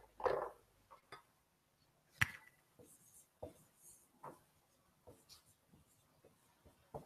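Dry-erase marker writing on a whiteboard: scattered light taps and short scratchy strokes, with a sharp click about two seconds in.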